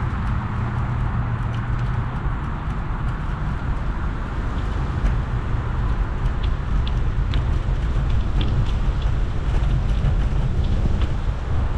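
Wind rushing over a GoPro Hero10 on a moving bicycle's handlebars, with no wind muffler, over a steady low tyre-and-road rumble. Small light clicks and rattles come through from a few seconds in.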